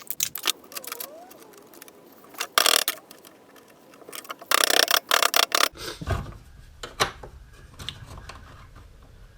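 Small plastic parts and tools being handled and worked by hand: scattered clicks and knocks, with two short rasping bursts about two and a half and five seconds in.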